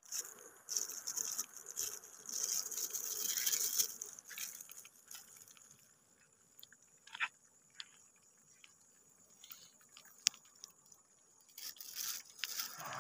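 Faint high crackling and fizzing for the first few seconds, then quieter with a few scattered sharp clicks, and a short crackle again near the end.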